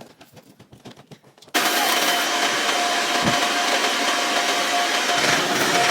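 A vacuum cleaner switches on about a second and a half in and runs steadily, a loud even rush with a thin whine in it.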